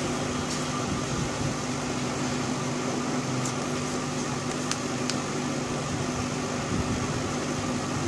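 A steady mechanical hum with a low, even tone, and a few faint ticks as a metal tweezer is slid along the edge of the phone's glued front glass.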